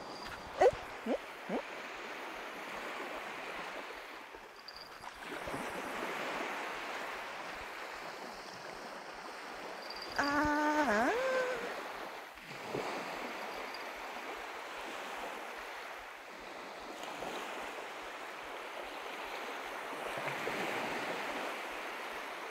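Small waves washing on the shore in slow, steady surges that swell and ease every few seconds. A few sharp short sounds come in the first two seconds, and a brief pitched call with a dipping pitch about ten seconds in.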